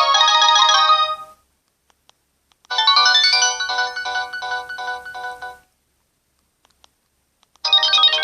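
Mobile phone ringtones playing one after another on a Samsung GT-E2250 phone. They are short chiming electronic melodies from the Samsung GT-E1205T's preset set. One tune cuts off about a second in; after a brief silence a second plays for about three seconds with quick repeated notes, and after another pause a new melody starts near the end.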